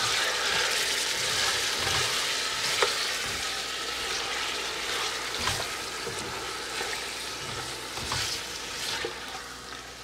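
Chicken pieces sizzling in hot oil in a stainless steel pot while being stirred with a silicone spatula, with a few knocks of the spatula against the pot. The sizzle slowly dies down.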